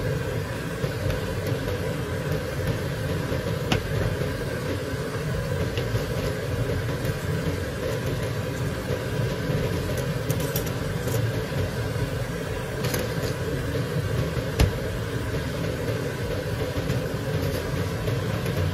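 Shrimp and chopped vegetables frying in a pan, with a frozen block of tomato sauce melting on top, over a steady low rumble; a couple of sharp pops stand out.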